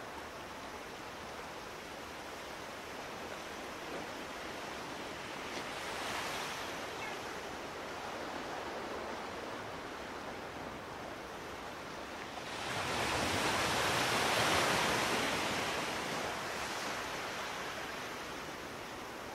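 Steady rushing outdoor noise, with a small swell about six seconds in and a bigger one starting about twelve seconds in that fades away over a few seconds.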